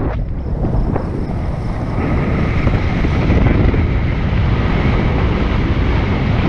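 Wind buffeting the microphone of a paraglider pilot's camera during launch and the first seconds of flight: a steady low rumble.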